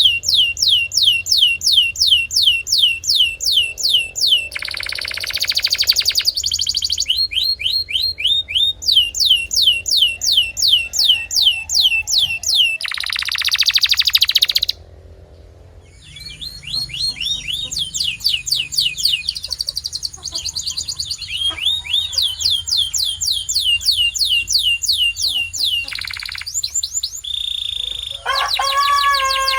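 Domestic canary singing: phrases of fast trills made of repeated high notes, broken twice by short low rattling rolls. There is a brief pause about halfway through, and lower, fuller notes come near the end.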